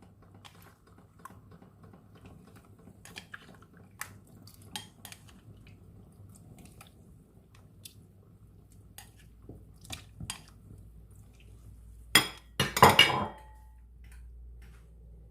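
Kitchen utensils clinking and knocking against a cooking pot, with scattered light clicks and then two louder clatters about twelve and thirteen seconds in.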